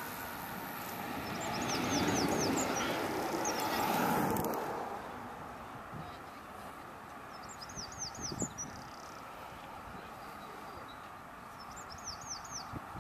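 A fully faired recumbent trike going past, a rush of tyres and air that swells over the first few seconds and falls away about four and a half seconds in. A bird sings a short run of quick descending notes three times: near the start, in the middle and near the end.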